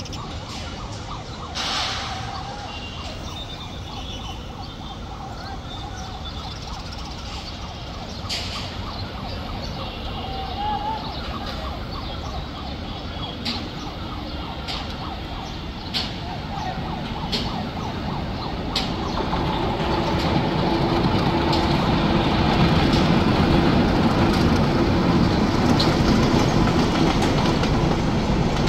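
Steady outdoor background with sharp knocks every second or two, then from about two-thirds of the way in a passenger train approaches on the tracks below and grows louder, rumbling with a steady low drone as it passes.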